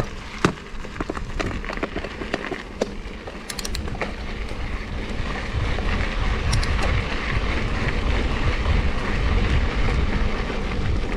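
Mountain bike descending a dirt forest trail: wind buffeting the camera microphone and tyres rolling over the ground, with scattered clicks and rattles from the bike over bumps. The low wind rumble grows stronger from about halfway through as the bike speeds up.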